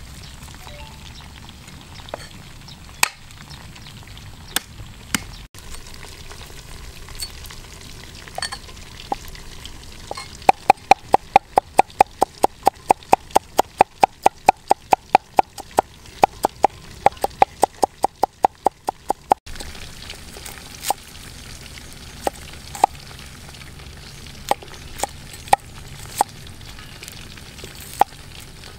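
Metal cleaver chopping on a wooden cutting board: scattered single chops, then a fast, even run of mincing strokes, several a second, for about nine seconds through the middle as garlic is minced, then scattered chops again as shallots are cut. Oil frying in a wok sizzles steadily underneath.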